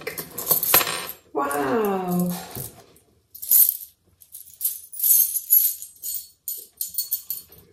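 Small metal charms clinking and jingling against each other as they are tipped out of an organza drawstring bag into a hand, in a burst at the start and again in several bursts from about three and a half seconds in.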